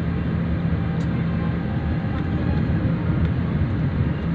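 Steady engine and road rumble of a moving vehicle, heard from on board, with a faint steady hum under it.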